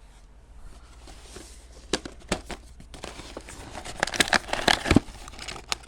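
Hands handling small plastic parts at a workbench: light rustling with a few sharp plastic clicks about two seconds in, then a busier run of clicking and crinkling about four to five seconds in.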